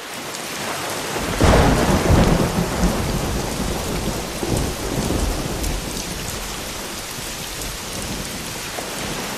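Steady rain falling, with a rumble of thunder that comes in about a second and a half in and dies away over the next few seconds.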